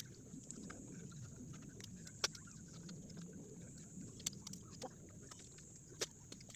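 Faint chewing and mouth sounds of a person eating instant fried noodles, with scattered sharp clicks, the loudest a little over two seconds in.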